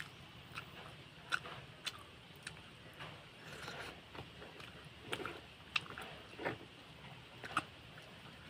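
A person chewing and eating grilled barbecue, with irregular wet smacks and clicks from the mouth, a few of them louder.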